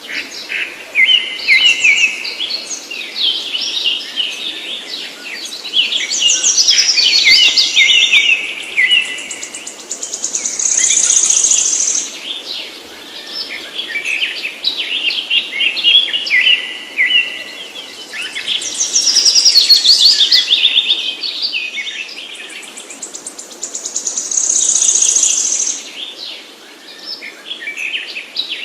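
Birdsong: fast chirps and trills, loud and dense, with a sequence of phrases that comes round again about every 13 seconds.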